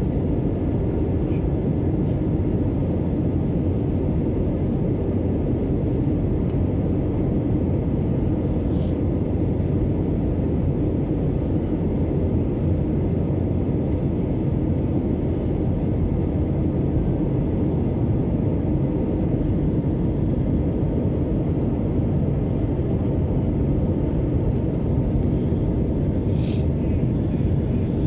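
Steady cabin noise of an Airbus narrow-body airliner in flight, heard at a window seat beside the engine: a constant low rumble of engine and airflow. Two faint brief clicks, about nine seconds in and near the end.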